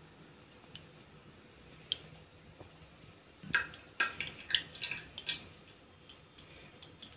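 Cooking oil being poured from a glass bowl into a non-stick pan. It is quiet at first, then about halfway through comes a two-second run of small clinks and drips.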